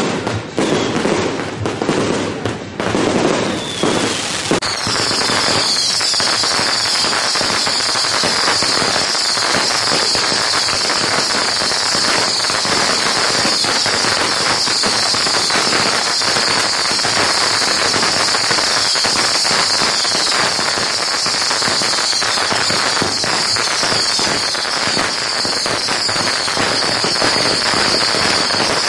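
Long strings of firecrackers going off in a dense, unbroken crackle. About five seconds in, a steady high hiss joins and holds.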